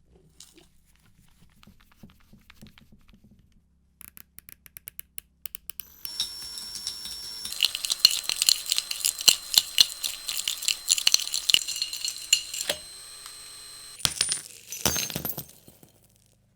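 Small metal parts clinking and scraping against each other, with ringing overtones. A run of evenly spaced clicks comes about four seconds in, then a long stretch of dense clinking, then a last short burst.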